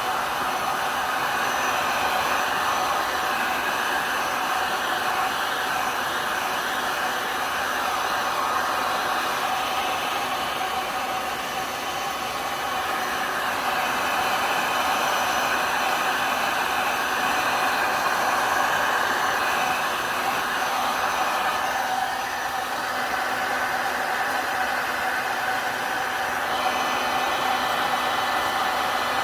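Hair dryer blowing steadily, its sound swelling and easing a little now and then as it pushes wet alcohol ink around the tumbler.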